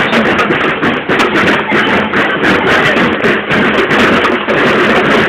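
A children's school marching band's drums playing, loud and distorted, over the noise of a street crowd.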